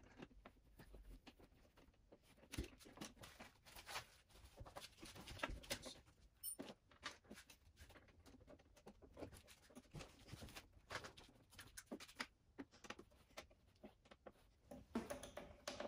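Allen key turning screws to fasten the plastic spoiler onto a Segway Ninebot GoKart Pro: faint, irregular clicks, taps and scrapes of metal on plastic as the screws are driven in.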